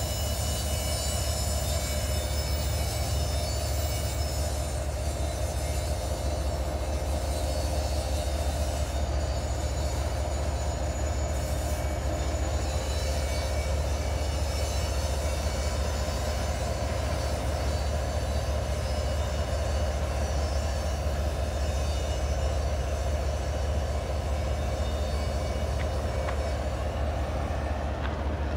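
BNSF intermodal freight train rolling by with a steady, unbroken rumble, with thin high-pitched tones held steady above it.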